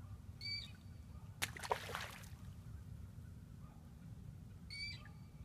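A white bass thrown back into the river hits the water with a splash about a second and a half in: a sharp slap, then a short spray of water. A short high call sounds twice, near the start and near the end, over a steady low rumble.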